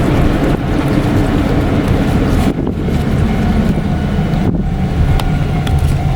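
Loud, steady low rumble of a vehicle passing, with a few sharp ticks over it.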